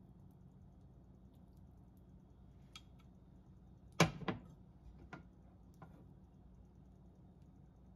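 A glass measuring cup set down on the stovetop with a sharp clack and a second knock just after, about halfway through, followed by a couple of lighter clicks of chopsticks against the nonstick pan. A faint low hum runs underneath.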